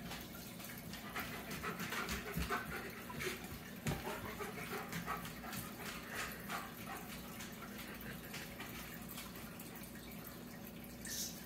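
A cat pawing and batting at a Christmas tree's branches and hanging ornaments: scattered light rustling and small clicks, busiest in the first half, along with some faint animal vocal sounds, over a steady low hum.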